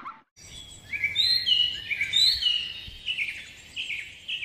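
Bird song: a quick run of short chirping notes over a faint background hiss, starting about a second in and growing fainter toward the end.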